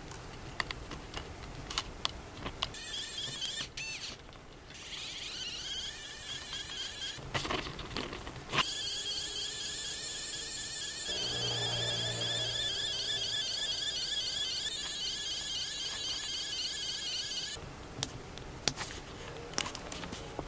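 3D pen's filament feed motor running with a high, warbling electric whine as it extrudes PLA, breaking off briefly a few seconds in and stopping a few seconds before the end, with a deeper hum joining midway. Small clicks of hand tools before and after.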